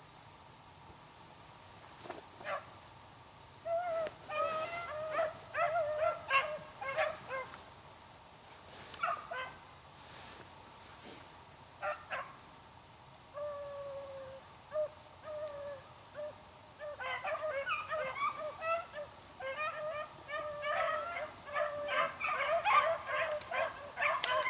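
Pack of beagles baying as they run a rabbit's track, in bursts of yelping bays at first, then more continuous over the last several seconds.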